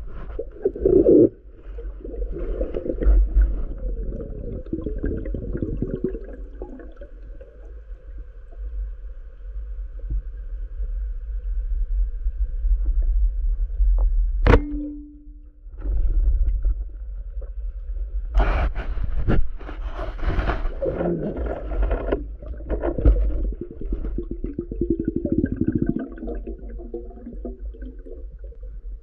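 Underwater sound through a diver's camera: a steady low muffled rumble of water with bubbling and scraping, one sharp click about halfway through, and several louder bursts of bubbling in the second half.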